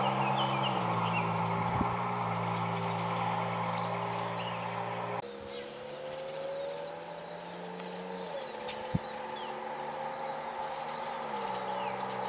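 A Nissan Frontier's 4.0 L V6 running through a Magnaflow single-in, dual-out exhaust as the truck drives away. A steady exhaust drone drops in pitch in steps and fades into the distance. Birds chirp faintly over it, with a couple of sharp clicks.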